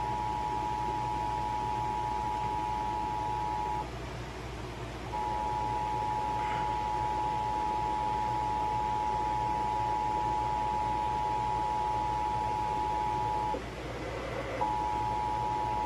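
Emergency Alert System two-tone attention signal: two steady tones just under 1 kHz sounding together over AM radio hiss, the alert tone that precedes an emergency voice message. It cuts out for about a second around four seconds in and again near the end.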